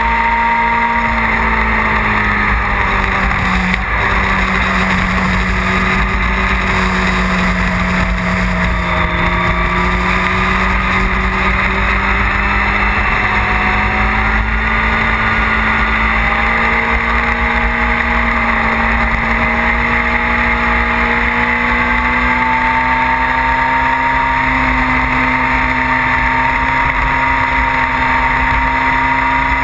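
Motorcycle engine running hard at steady road speed, its pitch drifting slowly up and down with the throttle through the bends, under heavy wind rush on the microphone.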